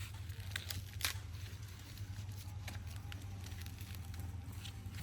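Scattered light crackles and clicks, with a sharper click about a second in, over a steady low hum.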